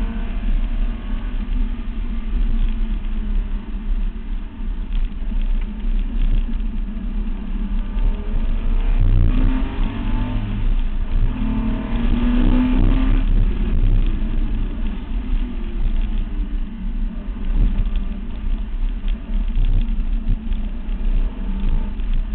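Datsun 240Z driven at speed on a time-trial lap, heard from a camera beside the front wheel: heavy wind buffeting and tyre noise on the asphalt over the engine, whose note rises and falls with the revs, most clearly about halfway through.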